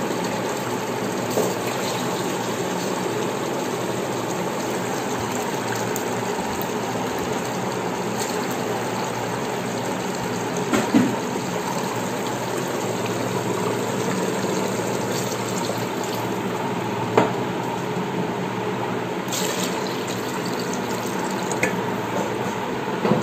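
Water poured by the tumblerful from a steel tumbler into an electric rice cooker's pot of hot chicken gravy, a steady pouring and splashing sound, with a few brief knocks of the tumbler along the way.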